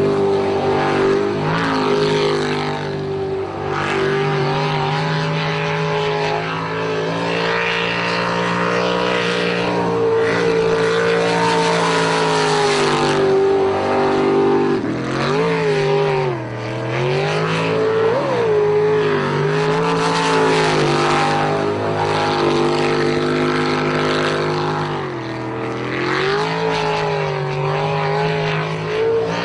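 Jet sprint boat engine running hard at high revs, over the hiss of its water spray. Its pitch dips and climbs again several times, most deeply about halfway through.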